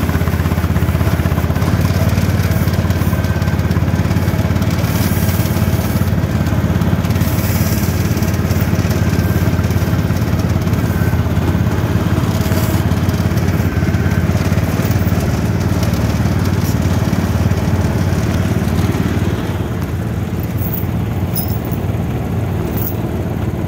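Small garden tractor engine with an upright straight exhaust stack running steadily as the tractor is driven, heard from the seat, with a low steady drone. About three quarters of the way through it drops to a lower, quieter run.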